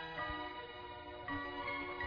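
Instrumental passage of a 1980s orchestral pop song played from a vinyl LP: soft sustained notes in several layers without singing, moving to a new chord a little past halfway.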